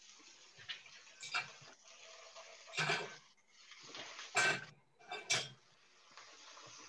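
Clinks and knocks of a frying pan and kitchen utensils, about four short clatters, as halloumi slices are laid into the pan, over a faint steady hiss.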